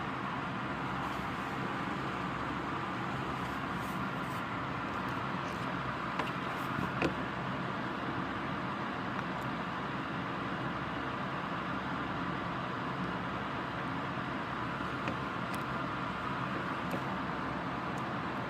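Steady rain falling, an even hiss with a few faint drip ticks scattered through it.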